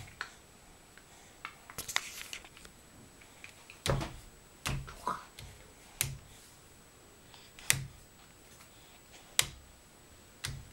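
A hand knocking on a surface: a series of sharp knocks, each with a dull thud, coming irregularly every second or two.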